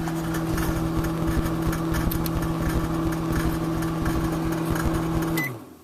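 Microwave oven running with its steady, deep transformer hum and a crackly buzz, with light bulbs glowing inside it. About five and a half seconds in, a short beep sounds and the oven shuts off.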